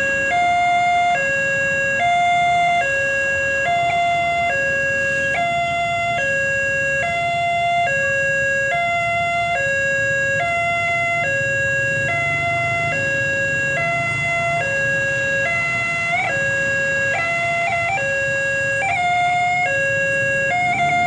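Railway level-crossing warning siren alternating steadily between two tones, a little over a second per cycle, with a hoarse, almost laughing quality. Its pitch wavers briefly a few times in the last few seconds, and a low rumble sits under it in the middle.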